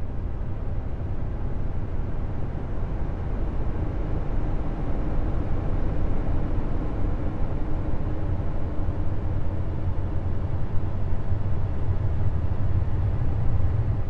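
Deep, steady rumbling noise with a faint hum above it: a space 'sound' presented as the sound of Jupiter's moon Callisto, of the kind made by turning spacecraft plasma-wave or radio recordings into audio.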